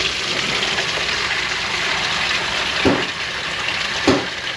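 Water pouring out in a steady rush, with two short knocks about three and four seconds in.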